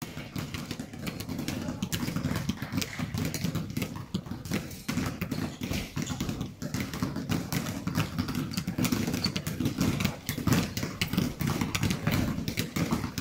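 Several basketballs being dribbled at once on a gym floor: many overlapping, irregular thuds echoing in the hall.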